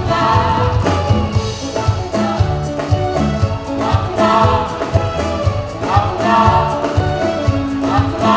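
Live band music with a steady bass beat, a lead singer and backing vocalists singing together.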